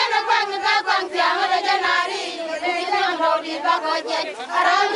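A crowd of women singing together, many voices carrying one wavering melody.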